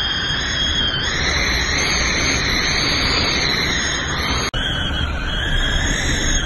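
Hurricane-force winds of a major hurricane blowing hard and steadily, a dense loud rush with a faint high whistle on top. The sound cuts out for an instant about four and a half seconds in.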